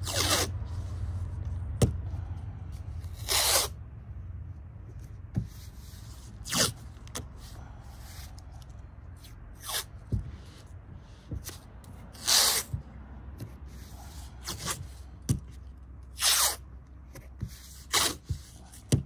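Masking tape being pulled off the roll and torn, then pressed down onto canvas: a series of short rips every few seconds, with light rubbing between them.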